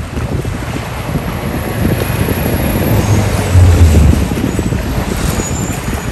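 Outdoor street rumble of road traffic, mixed with wind buffeting the microphone; a louder low hum swells about three to four seconds in, like a vehicle passing.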